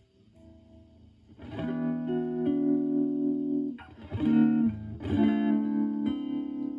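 Clean electric guitar chords on a Stratocaster (HSH pickups) through a Joyo JF-09 analog optical tremolo pedal set to medium intensity and a low rate, into a Marshall Valvestate amp's clean channel. After a near-quiet start, a chord is struck about a second and a half in and rings, then two more chords follow a little after four and five seconds.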